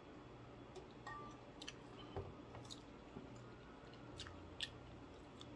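Faint chewing: a handful of scattered soft mouth clicks and smacks, over a low steady hum.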